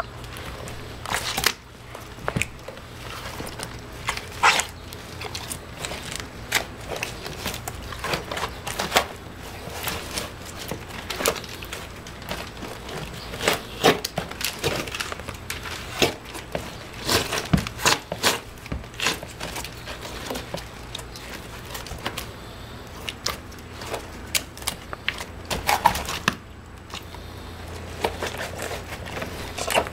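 Wet mud squishing and crackling as hands and bare feet press and knead it into mud-caked mesh sneakers: irregular small clicks and squelches, a few to several a second, over a low steady hum.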